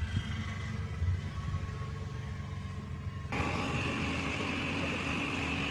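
Outdoor background noise: a low, steady rumble that changes abruptly about three seconds in to a louder, even noise with a high hiss.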